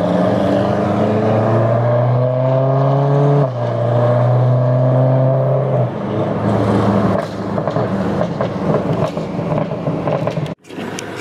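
BMW E92 M3's V8 accelerating, its pitch rising until a gear change about three and a half seconds in, then pulling again briefly. After lifting off, the exhaust pops and crackles on the overrun.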